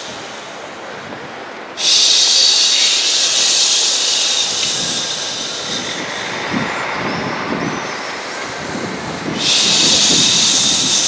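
A woman hushing into a microphone: two long, loud "shhh" sounds, the first starting about two seconds in and lasting about four seconds, the second starting near the end. Between them there is a quieter, lower breathy sound.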